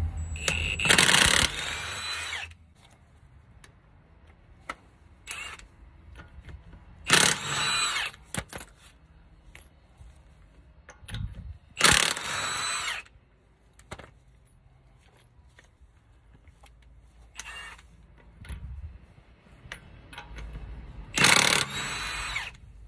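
Milwaukee cordless impact wrench zipping lug nuts off a car wheel, in separate bursts of one to two seconds, one nut at a time, several seconds apart.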